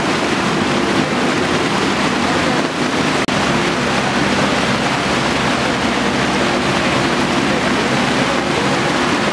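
Muddy flash-flood water rushing steadily across a street, with a steady low hum underneath. The sound cuts out for an instant about three seconds in.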